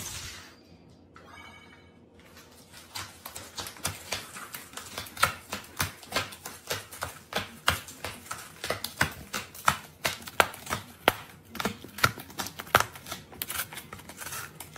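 A flattened cardboard drinks-carton tray lands on a hard floor with a sharp knock, then a cat eats dry kibble out of it: a fast, uneven run of crisp crunches, several a second, starting about two seconds in.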